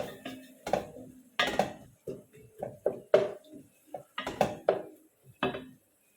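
Metal spoon clinking and knocking against a cooking pot: about a dozen sharp, irregular knocks, some ringing briefly.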